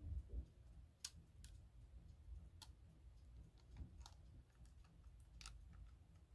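Near silence: faint room hum with a few scattered faint clicks.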